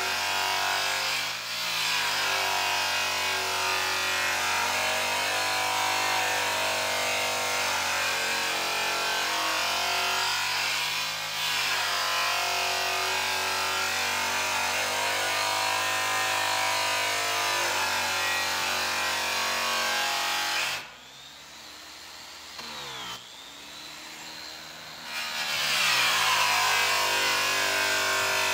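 Handheld rotary buffer with a buffing wheel and compound running against a sanded metal tank: a steady machine whine with two brief sags in pitch. About two-thirds of the way in it goes much quieter and thinner for about four seconds, then comes back up to full loudness.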